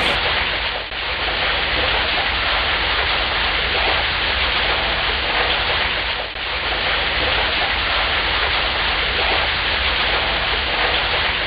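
Heavy rain falling, a dense steady hiss, with two brief dips in loudness, one about a second in and one about six seconds in.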